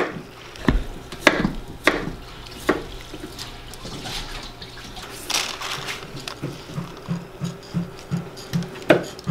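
A small bowl scooping soaked sticky rice out of its purple soaking water in a plastic basin, with a string of wet scrapes and splashes. The wet rice is tipped into a woven bamboo steamer basket.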